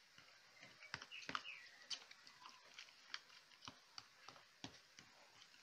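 Faint, irregular taps and scrapes of a fork against a plastic container as mango slices are crushed into pancake batter. A short high squeak falls in pitch about one and a half seconds in.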